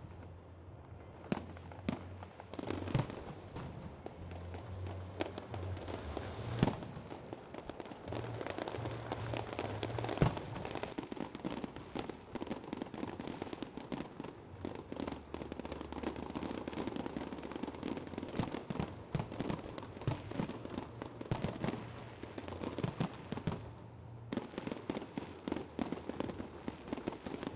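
Fireworks display: rockets and shells bursting in a dense, continuous run of bangs and crackling, with a few sharper, louder reports scattered through, the loudest about ten seconds in.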